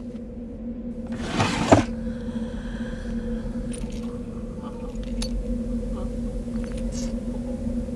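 Steady low drone from a horror film's sound design, with a sudden noisy whoosh ending in a sharp hit about a second and a half in, then faint scattered clicks and rattles.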